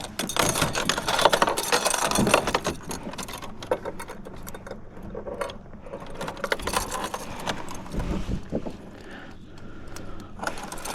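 Irregular metallic rattling, clicking and scraping of fishing tackle and gear being handled in a kayak while a trout is landed.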